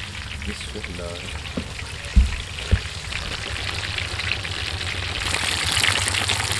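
Fish deep-frying in very hot oil in an iron karahi, the oil sizzling and bubbling steadily and growing louder about five seconds in; this is the first of two fryings, a half-fry. Two dull knocks come about two seconds in.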